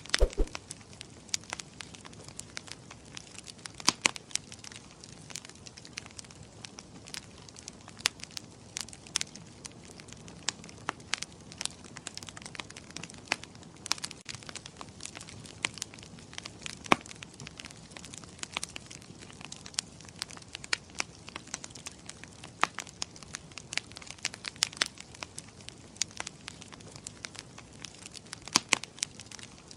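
Wood fire crackling in a fireplace: irregular sharp pops and snaps, several a second with an occasional louder one, over a faint steady hiss.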